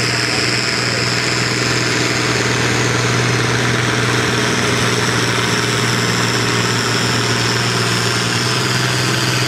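Pulling tractor's engine running hard and steady under load as it drags the sled, holding one pitch, with a high whine over it that dips slightly near the end.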